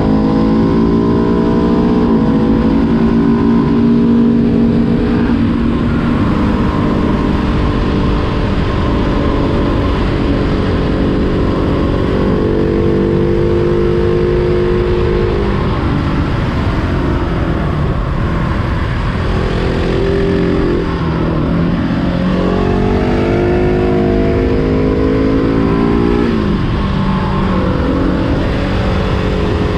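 Husqvarna 701 SM supermoto's single-cylinder engine under way, heard from on board. The engine note holds steady, then falls and rises again several times as the rider rolls off and on the throttle and changes gear, with a sharp drop a few seconds before the end.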